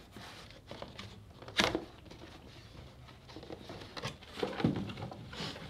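Cardboard shipping box being rummaged through by hand: rustling and scraping with scattered knocks, the sharpest about a second and a half in, and a few more near the end.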